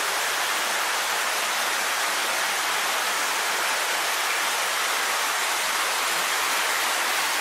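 Steady, even hiss that holds at one level throughout, with no distinct events in it.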